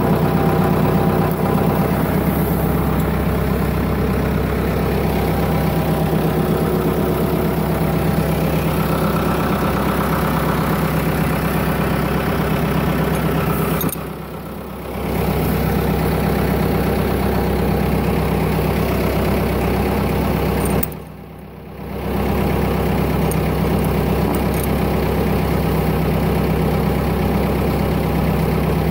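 Tractor engine idling steadily. The sound drops away briefly twice, once just past halfway and again a few seconds later.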